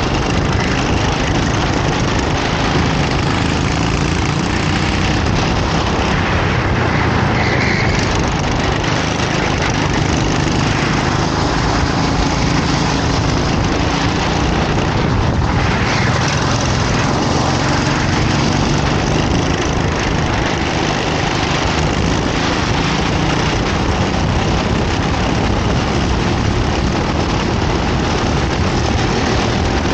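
Racing kart engine running hard during a race, its pitch rising and falling with the throttle over a steady rush of noise.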